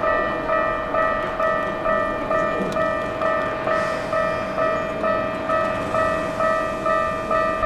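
Japanese electronic level-crossing warning bell ringing steadily, a ringing tone repeating a little over twice a second.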